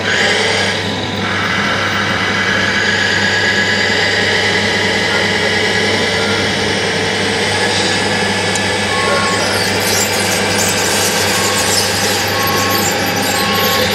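Radio-controlled scale construction machines (a tracked bulldozer pushing soil, a roller and a dump truck) running with a steady mechanical whine and grinding. From about nine seconds in, a model's reversing beeper sounds in short, evenly spaced beeps.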